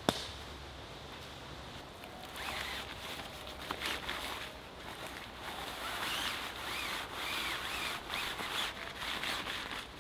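Camping hammock fabric rustling and rubbing as it is pulled and handled, starting about two seconds in and going on unevenly. A brief sharp click comes right at the start.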